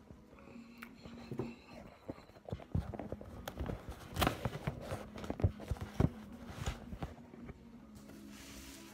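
Irregular knocks and scrapes at a dinner table, heaviest in the middle: a phone being handled and a metal fork working in a plate of pasta.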